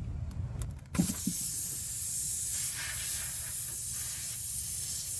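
Air hissing steadily out of a car tire's puncture, starting suddenly about a second in after a short knock: the nail has just been pulled from the tread, leaving the hole open.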